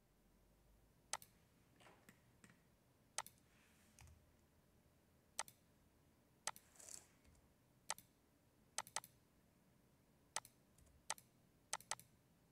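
Computer mouse clicking about a dozen times, a second or two apart, with two quick double clicks, over faint room hiss.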